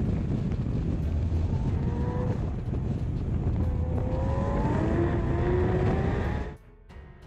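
Porsche 718 Cayman GT4 RS at speed on track: its 4.0-litre flat-six is heard under heavy wind rush on the rear-mounted microphone, and the engine note rises in pitch as it accelerates. The sound cuts off abruptly near the end.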